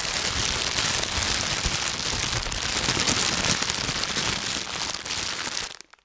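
Plastic bag crinkled and scrunched by hand right against a microphone: a dense, continuous crackle that stops abruptly just before the end.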